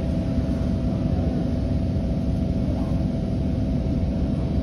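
Kawasaki C151-series MRT train running slowly through a station platform: a steady rumble of wheels and motors with a faint steady hum above it.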